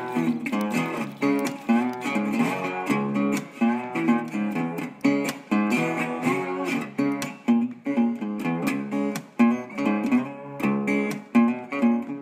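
Background music: a guitar playing plucked notes at a steady pace.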